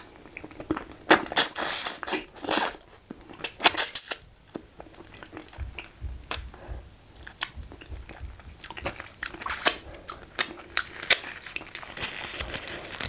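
Close-miked mouth sounds of a man eating starch with banga soup by hand: chewing, wet lip smacks and finger licking, in irregular clicks. They come in louder clusters in the first few seconds and again around ten seconds in.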